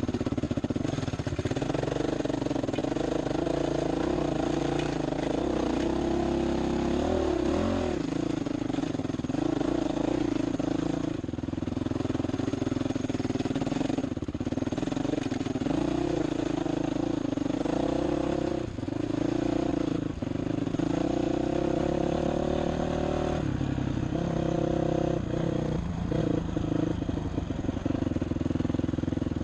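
Honda dirt bike engine running under changing throttle as it is ridden over rough dirt, its pitch rising and falling, with several brief drops as the throttle is let off.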